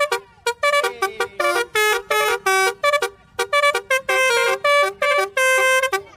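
Telolet bus horn (Basuri multi-tone horn) playing a fast melody of short pitched toots, several a second, with a few longer held notes near the end.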